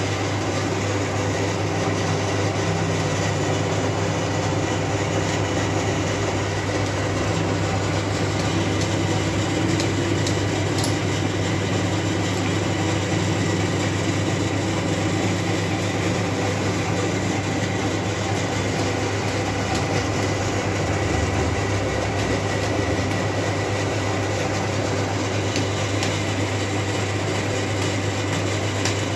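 Metal lathe running steadily with a steady low hum as it turns a large steel roller shaft. The cutting tool is working the shaft's end journal down to bearing size.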